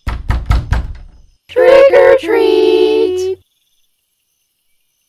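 Knocking on a door, a quick run of raps that fades, followed by high-pitched cartoon voices calling out, the last word drawn out.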